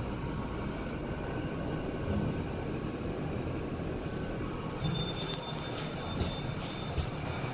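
A 1979 Hitachi scenic lift car travelling with a steady low rumble. About five seconds in comes a short high electronic chime, a signal from the car.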